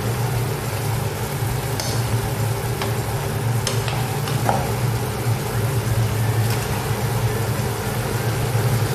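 Fish and green beans cooking in a frying pan, sizzling steadily over a constant low hum, with a few light clicks in the first half.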